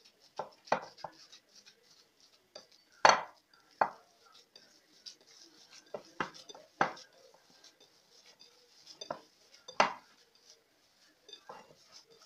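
Hands kneading minced meat in a ceramic bowl, with irregular knocks and clinks against the bowl, the loudest about three seconds in.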